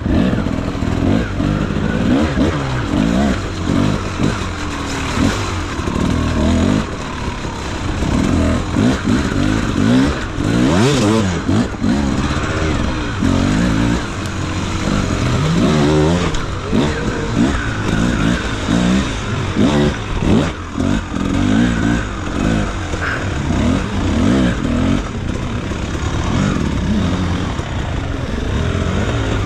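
Beta RR enduro motorcycle engine being ridden hard over rough muddy ground, its revs rising and falling over and over as the throttle is worked.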